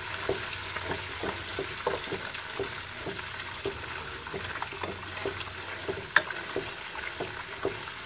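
Coconut curds (latik) frying in coconut oil rendered from coconut milk, with a steady sizzle and many small pops, while a spatula stirs and scrapes the pan. There is one sharper tap about six seconds in.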